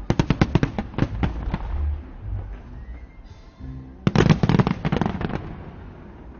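Fireworks going off in dense volleys of rapid crackling bangs: one barrage at the start, a quieter lull, then a second barrage about four seconds in that tapers off.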